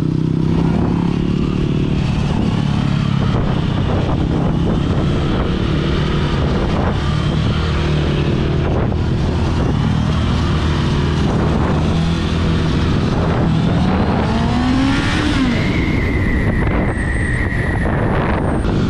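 Honda CB650R inline-four motorcycle engine running while riding at low speed, steady for most of the time, with the revs climbing briefly about fourteen seconds in.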